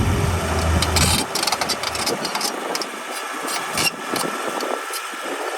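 Diesel engine of heavy earthmoving machinery running, with scattered clanks and knocks; its deep low rumble drops away about a second in.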